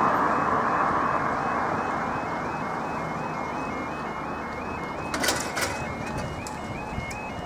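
Level crossing warning alarm sounding a repeating two-tone warble, about two and a half cycles a second, over road traffic noise that fades in the first two seconds. Barrier arms begin lowering, with two sharp metallic clatters from the barrier stands about five seconds in.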